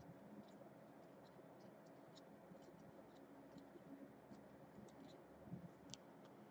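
Near silence with faint scattered ticks and light scratching, as trading cards are handled and inspected, and a soft knock about five and a half seconds in.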